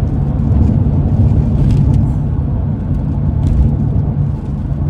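Steady low road and tyre roar inside the cabin of a moving BMW E46 M3. The road noise is quite loud because the car runs on hard Michelin Pilot Super Sport tyres.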